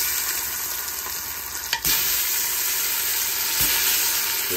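Curry paste frying in hot grapeseed oil in a steel pot, a steady sizzle. Tomato pieces drop in with a soft knock about two seconds in, after which the sizzle gets louder, and again near the end.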